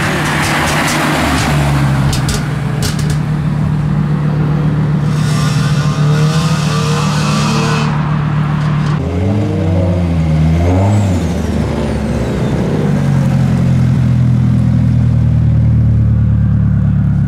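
Car engines revving and accelerating away one after another, the pitch rising and falling through gear changes in the middle, with a few sharp cracks in the first three seconds. Near the end a modified Nissan Silvia S14 rolls past close by with a strong, steady engine note.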